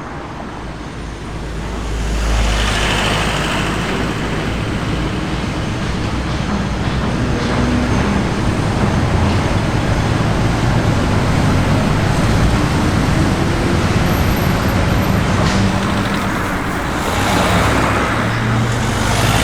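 Street traffic: cars driving past with engine and tyre noise, one car passing about two seconds in and another near the end.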